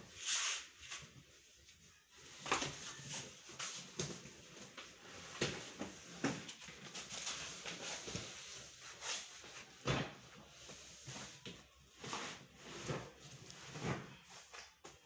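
Heavy cardboard cartons being handled: the boxes scrape, rustle and knock as they are lifted off a stack and set down, with a string of sharp knocks at irregular intervals.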